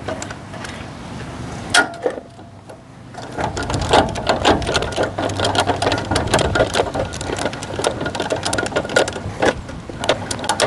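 Boat trailer's tongue jack being hand-cranked to unhitch the trailer from the truck, a fast, steady run of mechanical clicks starting about three seconds in, after a few separate knocks.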